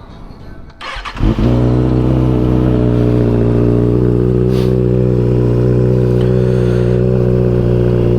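2020 Kawasaki Ninja ZX6R's 636 cc inline-four fires up about a second in through a freshly fitted Yoshimura Alpha T 3/4 exhaust, then settles into a steady warm-up idle. Its exhaust note is deep and almost hollow.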